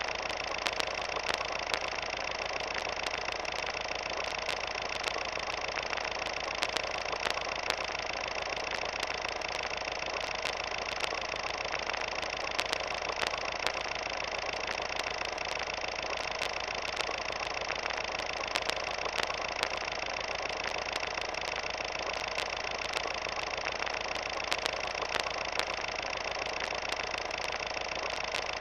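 Steady whirring hum and hiss with frequent, irregular crackling clicks: the running-projector and film-crackle noise of old silent footage.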